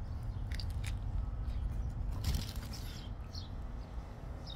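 Biting into a bacon cheeseburger with lettuce and chewing it, with a few short crisp crunches over a steady low rumble.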